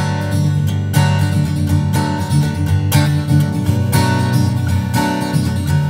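Background music: acoustic guitar strumming chords, with a strong stroke about once a second.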